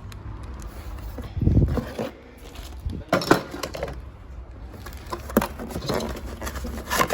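Handling noises from new transmission parts being moved and shown: a few short knocks and clinks over a steady low hum.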